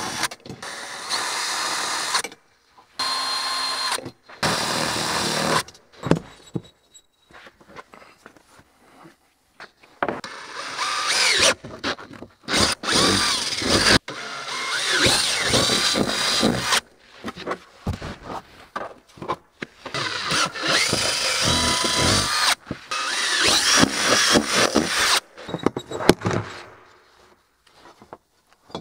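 Cordless drill running in short bursts as it drills holes through a plastic canopy panel, with pauses between runs. Three brief runs come in the first few seconds, then longer runs with the motor speeding up and slowing down.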